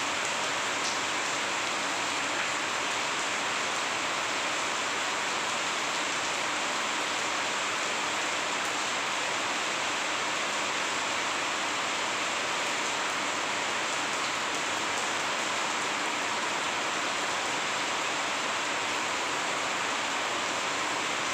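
Steady rain falling on a wet concrete roof, an even hiss that does not let up.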